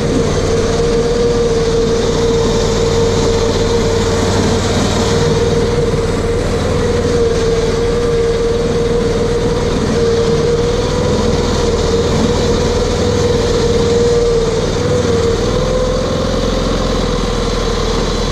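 The RS1000's engine running steadily, a continuous drone holding nearly one pitch with a low rumble under it.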